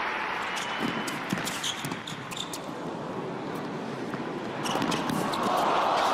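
Tennis ball being struck by rackets and bouncing on an indoor hard court during a rally, a series of sharp pocks and knocks. Crowd noise swells near the end.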